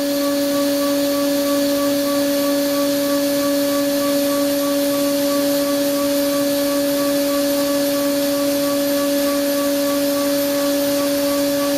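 CNC milling spindle turning at 17,000 rpm, driving an ISCAR Chatter Free 4 mm end mill through C45 steel at 5 mm depth of cut. A steady, even tone over a hiss of cutting, holding one pitch throughout.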